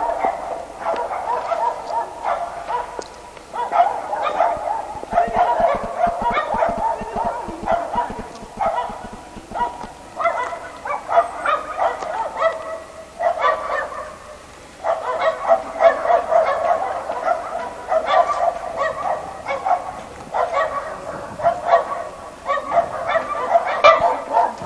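A dog barking over and over, with two brief lulls.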